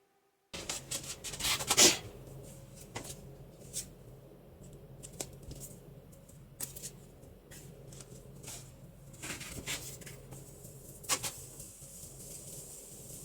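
Small handling sounds at a work surface: scattered light clicks, scrapes and rustles over a low steady hum, with a louder scrape about two seconds in.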